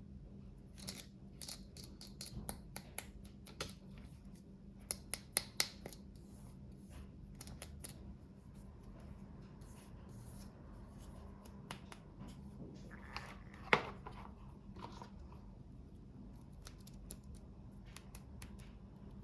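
Hands opening and handling small toy packaging: a run of sharp plastic clicks and light rustling, with three quick loud clicks about five seconds in and a louder click near fourteen seconds.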